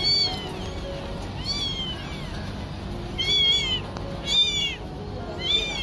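Newborn kittens mewing in a string of short, high-pitched squeaks, about one a second.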